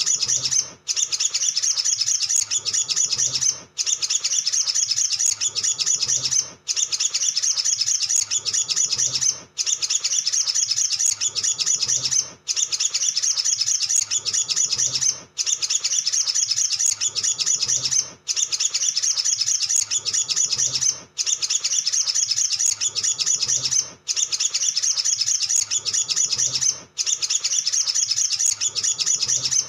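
Male olive-backed sunbird singing energetically: a fast, continuous high twittering and chirping, in phrases about three seconds long broken by short regular gaps.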